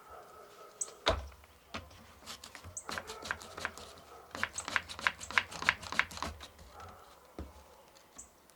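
A string of sharp, irregular clicks and knocks, as from tools and a wooden board being handled, coming fastest near the middle, over a faint steady hum.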